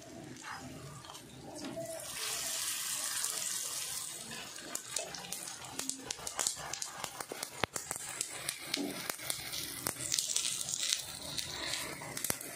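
Sesame lachha paratha sizzling in fat on a flat iron tawa, a steady hiss that swells from about two to four seconds in and again near ten seconds. Small crackles and the scrape and tap of a metal spatula under the bread run through it.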